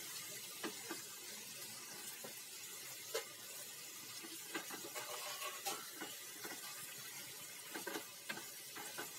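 Chicken pieces sizzling as they are sautéed in spiced masala in a pot over a gas flame, with a wooden spatula stirring and knocking against the pot every second or so.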